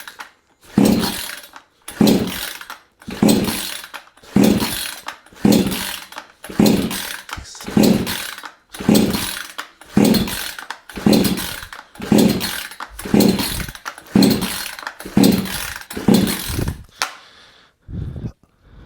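Recoil starter of a Proyama 68cc two-stroke chainsaw being yanked over and over, about one pull a second, some sixteen pulls. Each pull whirs the cord out and turns the engine over, but it never fires: the on/off switch was left in the off position.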